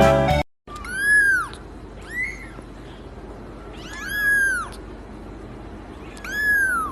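A kitten meowing four times, high-pitched calls that rise and fall, the second one short. Background music cuts off just before the first meow.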